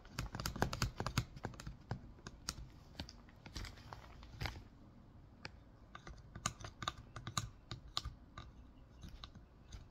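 Irregular small plastic clicks and taps of a toy dentist set's tool working against a plastic teeth model, dozens of them at uneven spacing.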